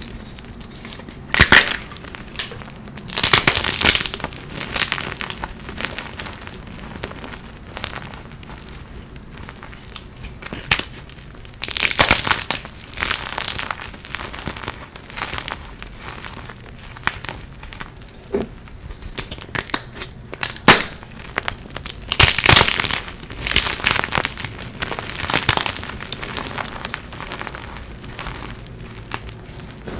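Dyed gym chalk crushed and crumbled by hand, with irregular crunching bursts every few seconds and soft powdery rustling between them as the crumbs are squeezed.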